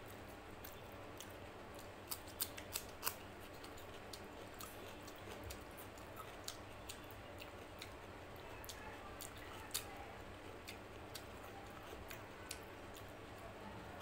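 Close-miked chewing of a mouthful of mutton curry and rice, with scattered sharp wet mouth clicks and smacks, a quick cluster of the loudest about two to three seconds in and another near ten seconds.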